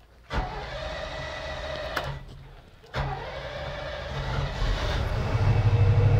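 Newly installed inboard boat engine started with the key: the starter cranks for about a second and a half and stops, then cranks again about three seconds in until the engine catches and runs, its low hum growing louder near the end.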